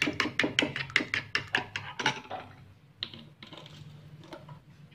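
Metal spoon beating eggs in a ceramic bowl: rapid, even clinks of the spoon against the bowl, about eight a second, that grow fainter and stop a little over two seconds in.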